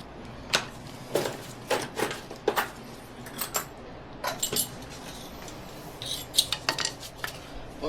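Metal objects clinking and knocking against each other, a dozen or so sharp clinks in irregular clusters.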